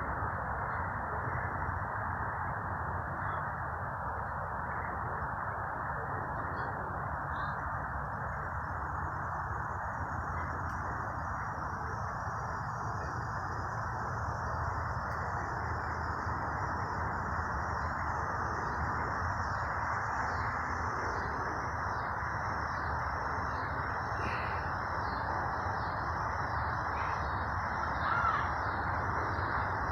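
Outdoor nature ambience: a steady rushing noise throughout, with faint high-pitched insect trilling. The trilling comes in about a quarter of the way through and turns into a regular pulsing in the second half.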